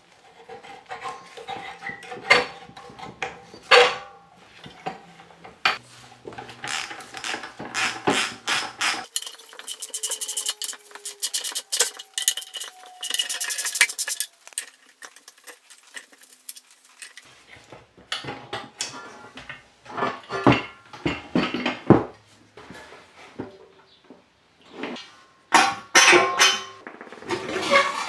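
Metal hand tools and engine parts clinking and knocking during disassembly of a small tiller engine, with a run of rapid clicks near the middle as a socket wrench works the spark plug loose.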